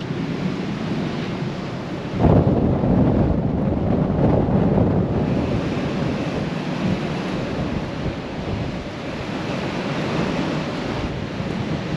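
Strong wind buffeting the microphone on a ship's open deck, a rushing noise that jumps louder about two seconds in and then surges and eases in gusts. Up here it is blowing a hoolie.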